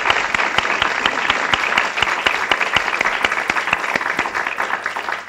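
Audience applauding: a dense run of hand claps that starts to thin out and fade near the end.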